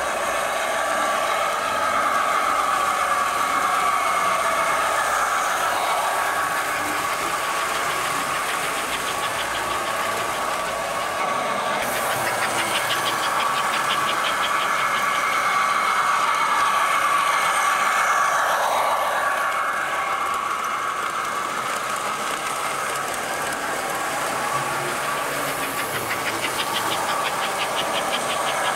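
American Flyer S-gauge toy trains running on metal sectional track: a steady hum of the locomotive motors and wheels rolling on the rails, with two runs of rapid clicking.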